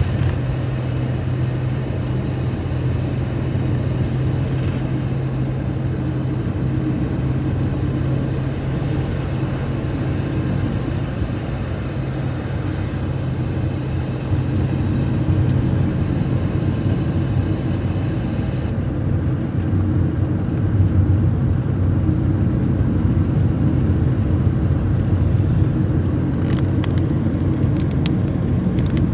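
Steady road and engine rumble heard from inside a moving car. Its low drone drops slightly in pitch about halfway through.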